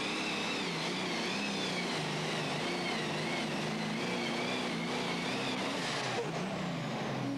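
Modified pulling tractor's engine running flat out under load as it drags the sled. Its pitch wavers up and down, with a high whine riding over it. About six seconds in, the note drops and the whine glides downward as the engine winds down.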